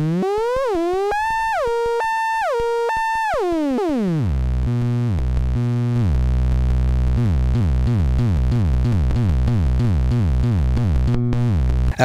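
Erica Synths SYNTRX analogue synthesizer oscillator with its pitch moved by the joystick: it climbs, jumps back and forth between two octaves, then glides down. From about four seconds in, a fast repeating sequence of short notes, each sliding down in pitch, plays over a steady low drone.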